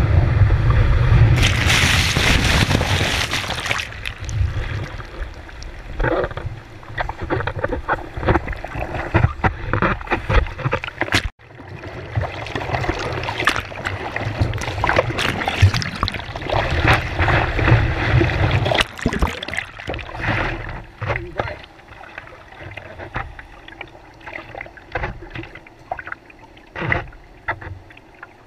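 Whitewater and wind rushing loudly past a surfboard's nose for the first few seconds of a wave ride, then irregular sloshing and splashing of seawater against the board as the surfer lies on it and paddles.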